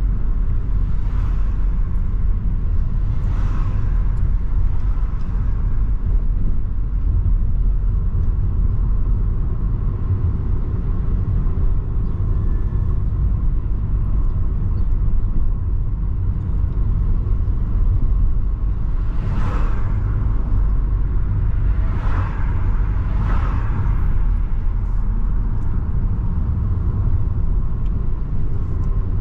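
Steady low rumble of a car's engine and tyres heard from inside the moving car, with a few short swells of noise about two-thirds of the way through.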